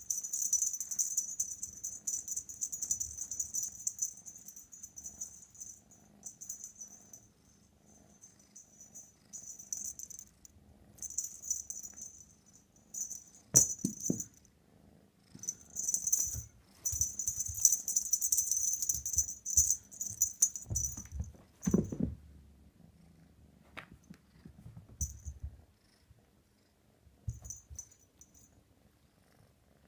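F3 Savannah kitten playing with a wand toy: the toy gives off bursts of high rattling as it is batted and pulled, with a couple of sharp knocks and a low purr underneath. The rattling stops about three-quarters of the way through, leaving only brief rattles.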